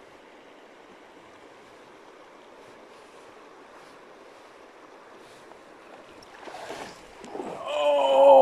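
Shallow river water running steadily over gravel, then a brief swish about six and a half seconds in as the fly line is lifted off the water on the strike. Near the end a man lets out a long, loud groan falling in pitch, in dismay at a trout that rose to his dry fly and was missed.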